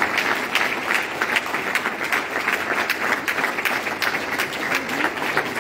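A congregation applauding: many people clapping their hands together, steady throughout.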